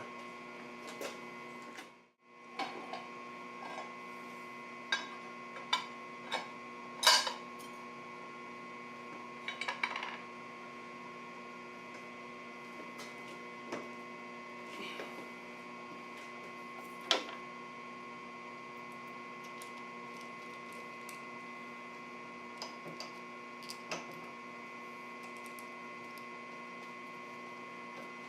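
Steady hum of a running machine tool's motor, with occasional sharp metallic clicks and clinks from tools and the workpiece being handled.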